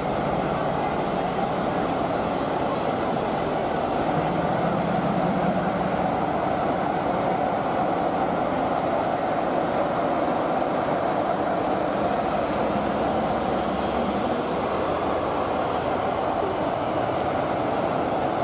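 Steady railway noise: a train of passenger coaches rolling slowly past close by, with steam hissing from a standing tank engine. The noise is continuous and even in loudness, with a low hum in the first few seconds.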